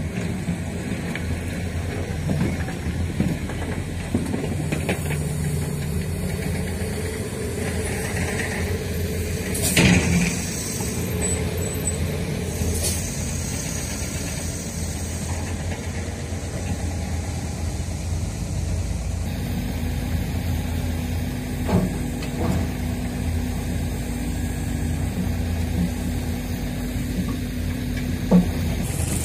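Diesel engines of Hino 500 and Mitsubishi Canter dump trucks running at idle and low speed, with a few short knocks and clunks, the loudest about ten seconds in.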